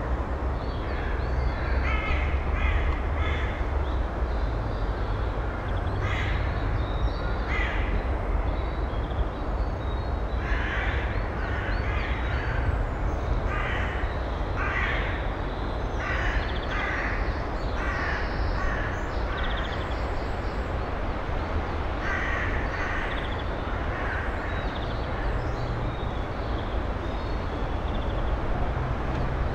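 Harsh, raspy bird calls in short runs, repeated again and again, over a steady low background rumble.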